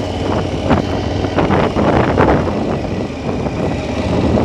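KTM 1290 Super Adventure's V-twin engine running at low speed, with scattered knocks over the steady engine sound.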